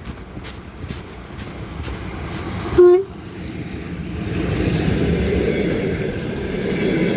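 EP2K electric locomotive with a passenger train sounding one short, high blast on its horn about three seconds in, then the rumble of the approaching train growing louder.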